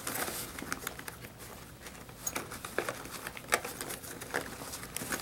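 Handling noise: a plastic bag crinkling and scattered light clicks as gear is worked out of a zippered bag pocket.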